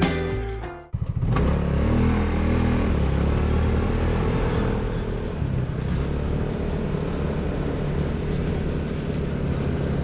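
Background music cuts off about a second in. The Hammerhead GTS 150 buggy's GY6 150cc single-cylinder four-stroke engine then runs, rising in pitch as it picks up speed and settling to a steady note while driving.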